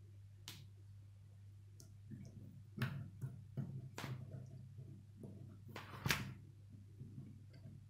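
K'nex plastic rods and connectors being snapped together and handled, giving a string of short clicks and rattles, with a few sharper snaps about three, four and six seconds in. A low steady hum runs underneath.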